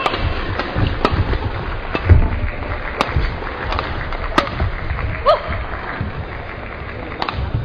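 Badminton rackets striking a shuttlecock in a fast doubles rally, sharp cracks roughly once a second, with players' shoes thumping and squeaking on the court floor over the murmur of an arena crowd.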